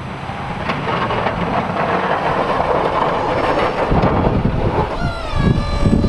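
Ford F-250 pickup with a Boss snow plow running and pushing snow. The sound grows louder, with heavy rumbling in the last couple of seconds and a short falling whine about five seconds in.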